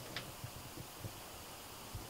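Paintbrush working on paper: a faint click and a few soft taps over a low hiss.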